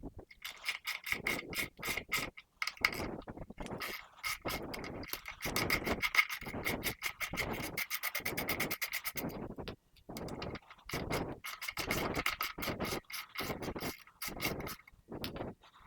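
Socket ratchet clicking in short runs as the front brake caliper bolts are turned with a 12mm socket, with a fast, even run of clicks around the middle, plus scraping and handling of metal parts.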